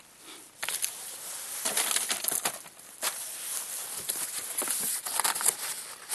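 Paper and cardboard rustling and crinkling as hands rummage through an open cardboard shipping box, with many small crackles and scrapes.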